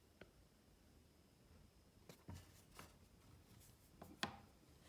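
Near silence: room tone with a few faint, short taps and clicks, the loudest about four seconds in.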